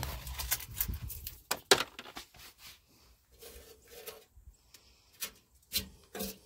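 Handling noise from things being moved about in a vehicle cab: scattered clicks, rustles and light knocks, with a rumble of handling in the first second and one sharp knock about two seconds in.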